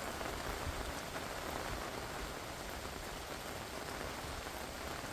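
Heavy rain pouring down and hitting the ground, a steady, even hiss of falling water.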